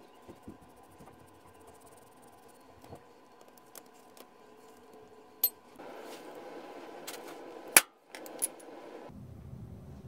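Three sharp knocks, the middle one by far the loudest: a maker's-mark stamp struck down onto leather laid on a granite slab, impressing the maker's mark.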